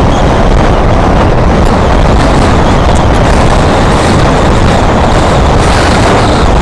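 Heavy wind buffeting on the microphone while riding: a loud, steady rumble with no clear engine note.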